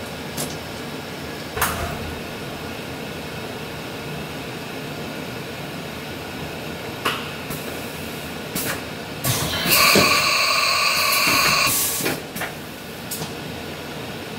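Hurco VMX 24 vertical machining centre running with a steady hiss and a few sharp clicks and knocks. About nine seconds in, a loud whistling hiss of compressed air lasts some two and a half seconds, the spindle's air blast as its tool is released, followed by a couple of knocks.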